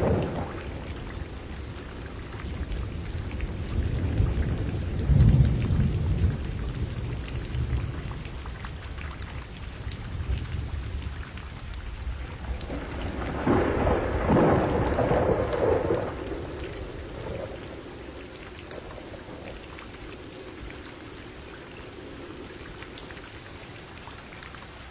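Thunderstorm: rain falling steadily, with a deep roll of thunder about five seconds in and a louder crackling peal around the middle that dies away into the rain.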